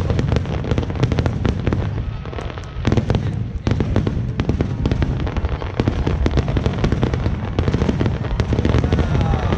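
Fireworks crackling and popping: a dense, uneven string of sharp pops and bangs, several a second, over a low rumble.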